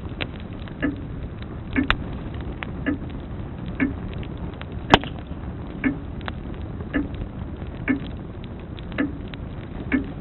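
Grandfather clock ticking steadily about once a second over the low hiss and crackle of a wood fire, with a sharp log pop about five seconds in, the loudest sound here.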